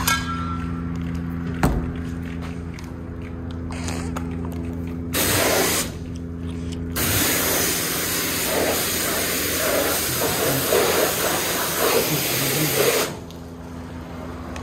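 Self-serve car wash high-pressure wand spraying onto a car: a short burst about five seconds in, then a steady hiss of spray for about six seconds that cuts off near the end. A steady low machine hum runs underneath.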